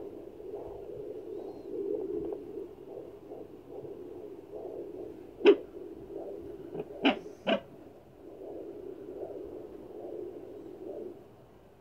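Handheld fetal doppler picking up a baby's heartbeat at 15 weeks of pregnancy: a fast, even pulsing of about two to three beats a second. Three sharp clicks come a little past halfway, and the pulsing fades near the end.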